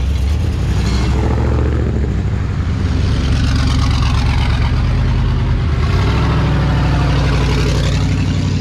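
Twin-turbo LS V8 engine running while driving, its engine note shifting a couple of times.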